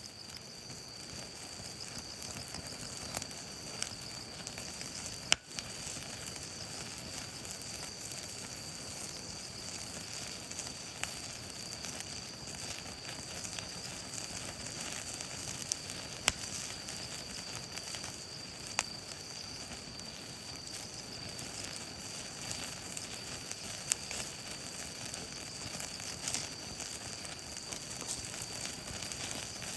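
Marinated beef skirt steak sizzling over a campfire: a steady hiss broken by a few sharp pops and crackles.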